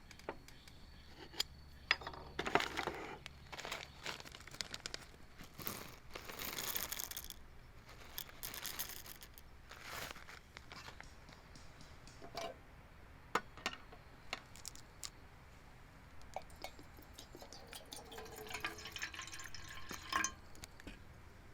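Hands-on coffee making: scattered small clicks and clinks of cups and gear, brief rustling and tearing of a packet, and liquid poured near the end.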